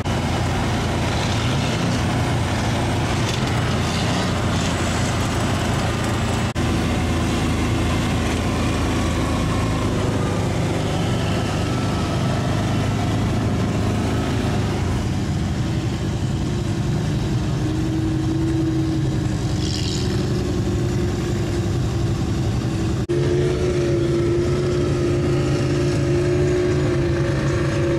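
Engines of lifted trucks and off-road vehicles running and driving by in a steady rumble. Briefly breaks twice, and a higher steady engine drone joins in for the last ten seconds.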